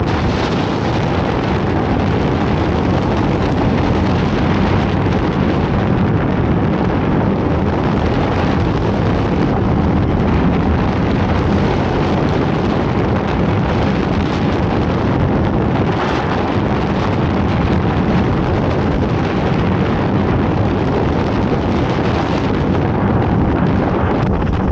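Wind rushing over the microphone and the steady rumble of an Intamin mega coaster train running along its steel track at speed, heard from the front seat.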